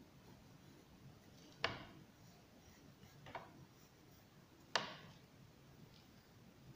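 Pencil tapping down on drawing paper: three sharp taps about a second and a half apart, over a faint background.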